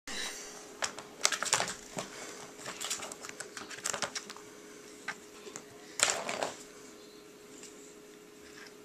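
Plastic ball-track cat toy clattering as a cat bats the ball around inside its circular track: irregular bursts of sharp plastic clicks and rattles, the loudest about a second in and again about six seconds in, dying away near the end.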